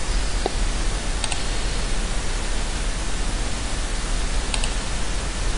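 Steady hiss of microphone background noise, with a few faint short clicks from a computer mouse, one about a second in and one near the end.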